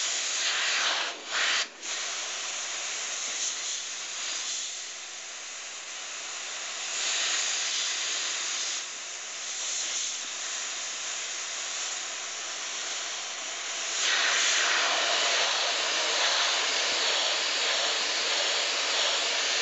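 Double-action airbrush hissing as it sprays in short detailing strokes, the air flow rising and falling with the trigger. It cuts off briefly twice near the start and grows louder about two-thirds of the way through.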